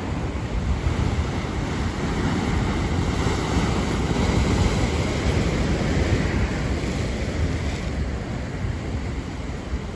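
Strong Atlantic surf: waves breaking and washing in, building to a peak in the middle and easing off near the end, with a low rumble of wind on the microphone.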